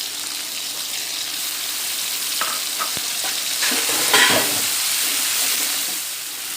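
Sautéed onions and ginger-garlic paste frying in hot oil in a kadai, sizzling steadily while being stirred, with a few short scrapes and clatters. The sizzle grows a little louder about four seconds in.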